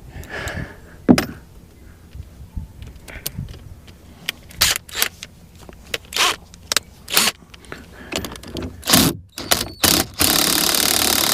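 Parts of a Mercury boat remote control being handled and worked by hand: a string of sharp clicks, knocks and scrapes. About ten seconds in, a steady hiss starts.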